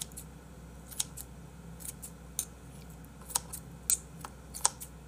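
Kitchen scissors snipping through pieces of squid: about ten short, sharp snips at irregular intervals, with a faint steady hum beneath.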